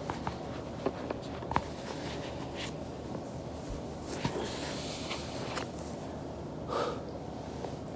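Back joints cracking while rolling on a foam roller: scattered soft pops and clicks, about half a dozen, over a steady background noise, with a longer, louder sound about seven seconds in.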